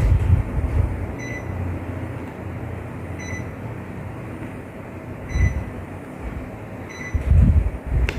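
Panasonic CS-YN7WKJ split air conditioner's indoor unit running, its fan blowing a steady rush of air, with gusts buffeting the microphone now and then. A short high chirp repeats about every two seconds.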